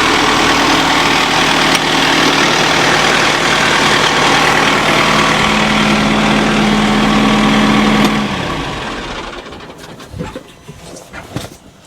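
Tractor engine idling steadily, then shut off about eight seconds in and running down to a stop, followed by a few faint clicks.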